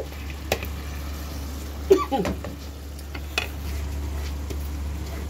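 Soaked split moong dal tipped from a plastic bowl into a pan of hot oil and masala, with a low sizzle under a few sharp knocks and scrapes of the bowl and spoon against the pan, the loudest about two seconds in.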